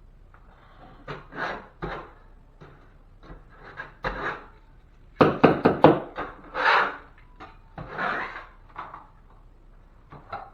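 Rubbing and scraping of hands and tape on drywall as fiberglass drywall tape is applied, in irregular bursts, with a quick run of sharp clicks about five seconds in.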